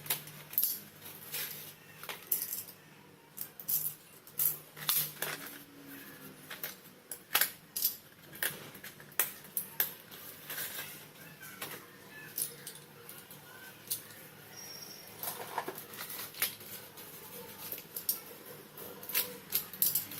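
Slate pencils clicking and cracking: a run of sharp, irregular clicks and snaps, some louder than others.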